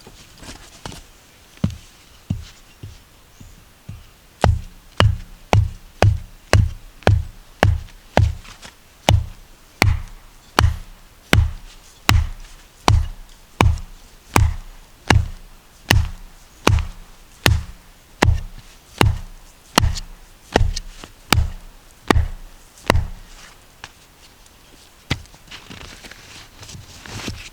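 Background music with a steady kick-drum beat, about two beats a second, that stops a few seconds before the end.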